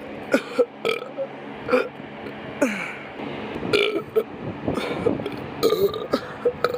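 A person burping repeatedly: a string of short burps, one after another.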